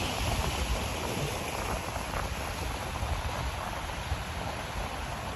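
Sea waves washing over shoreline rocks, a steady rush, with wind rumbling on the microphone.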